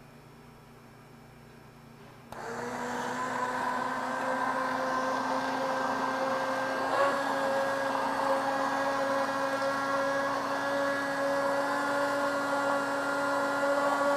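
Handheld immersion blender running in a stainless steel cylinder, pureeing soup: a steady motor whine that starts about two seconds in and cuts off suddenly at the end.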